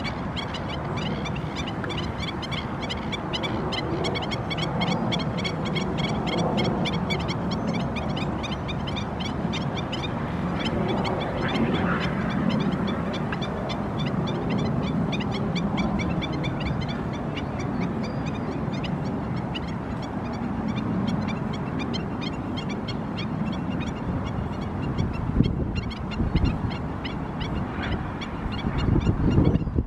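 Wild birds calling over a steady rushing background, with many short repeated calls throughout. A few louder thumps come near the end.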